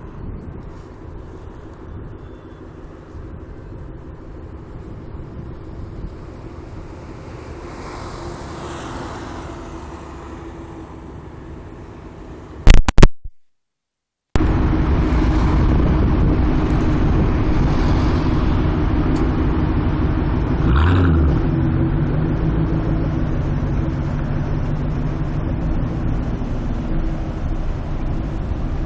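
Ford Mustang GT's V8 idling in stopped traffic, a steady low rumble. It is faint at first; after a brief dropout about 13 seconds in it comes back much louder, with a short swell about 21 seconds in.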